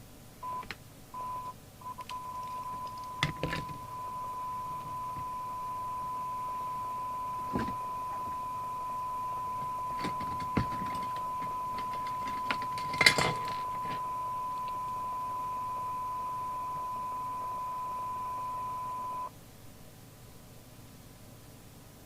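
Steady 1 kHz audio test tone on the bench, used to check the CB set's microphone circuit. It breaks up several times in the first two seconds, then holds steady until it cuts off suddenly near the end. A few sharp clicks and knocks of handling sound over it.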